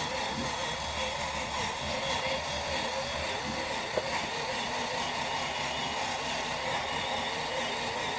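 Small handheld electric sander running steadily while wet-sanding a plastic headlight lens with 5,000-grit paper under light pressure, with a brief tick about four seconds in.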